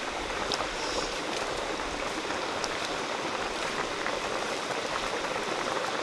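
Steady hiss of running or bubbling water, with a few faint ticks.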